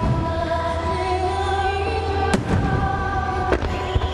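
Large aerial fireworks shells (shaku-dama, 10-gou) bursting over music. There is one loud boom about two seconds in and two more near the end.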